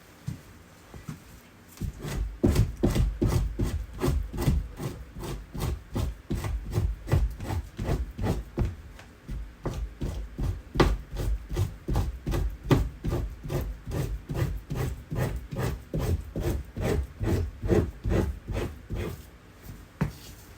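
Rhythmic scraping of a blade over an otter hide, about three strokes a second after a short quiet start: fleshing meat and fat off the skin.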